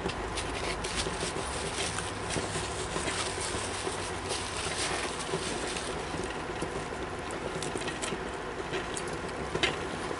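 Scattered small clicks and crunches of dry ration crackers being bitten and handled, over a steady low background hum.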